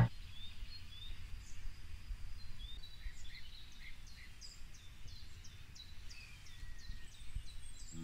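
Small birds chirping: scattered high calls at first, then from about three seconds in a run of short, repeated high notes about twice a second, over a low steady rumble.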